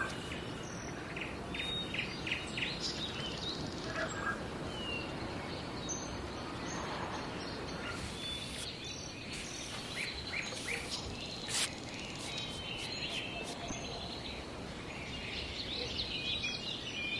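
Outdoor garden ambience: a steady background hiss with small birds chirping now and then in short high calls.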